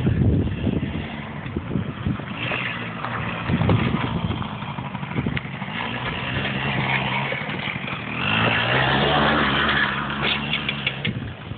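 Small 100cc quad bike engine running and revving up and down as it slides through mud, getting louder as it comes close about eight seconds in.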